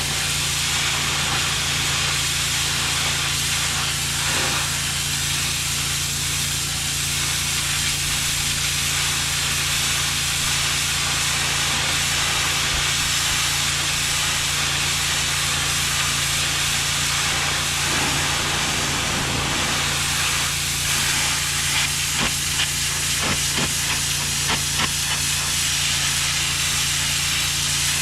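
HydroTek 30005VS pressure washer spraying a steady hissing jet while its engine hums evenly underneath, with a few short ticks near the end.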